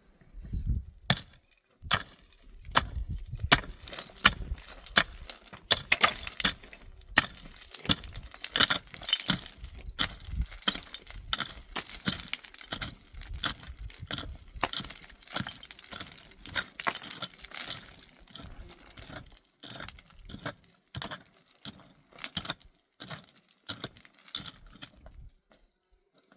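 Many sharp clinks and clatters of hard objects knocking together at an irregular pace.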